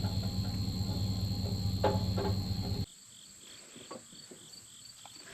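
A steady machine hum with a thin high whine stops abruptly about three seconds in. Then, quieter, insects chirp about three times a second, with a few faint clicks.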